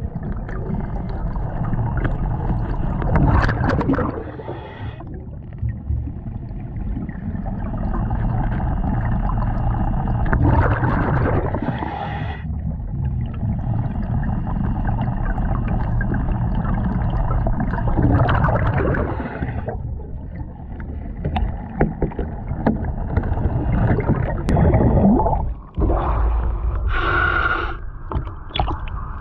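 Scuba diver's regulator breathing heard underwater: long bubbling exhalations with louder rushing surges about every seven seconds. Near the end the diver surfaces and the sound changes.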